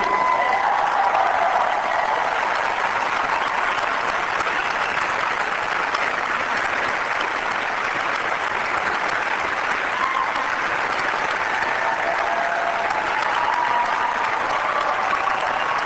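Large audience applauding, a steady unbroken ovation.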